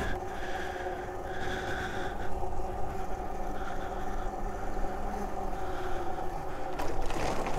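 Electric mini bike's motor and chain drive running steadily while riding, a held whine of several tones over tyre and wind noise.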